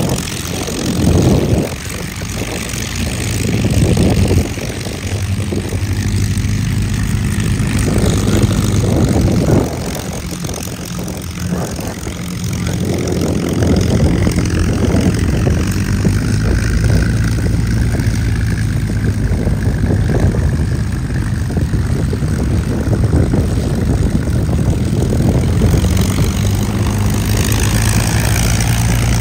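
Radial piston engines of North American T-28 Trojan propeller aircraft droning steadily, with several swells of louder noise in the first ten seconds as the planes pass.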